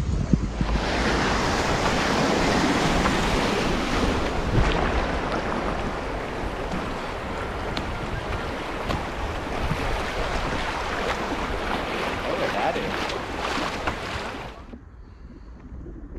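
Steady rush of fast-flowing floodwater with wind buffeting the microphone, heard from the bow of a canoe running swift current. It drops away suddenly about a second and a half before the end to a much quieter outdoor background.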